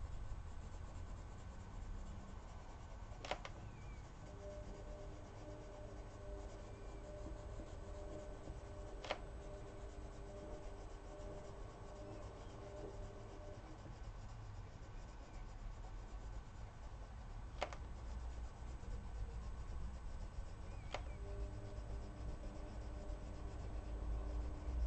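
Prismacolor wax-based coloured pencil scratching and rubbing on paper as it shades in short strokes, with four sharp clicks spread through it.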